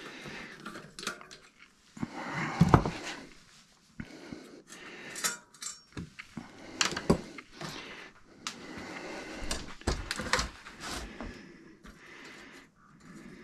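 Irregular metallic clinks, knocks and clatters of a bicycle's steel cassette sprockets and a chain whip being handled while the two-piece cassette is taken off the rear wheel.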